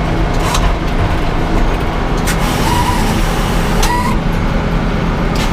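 Sawmill engine running steadily with a low drone, a few light knocks and a brief squeak over it.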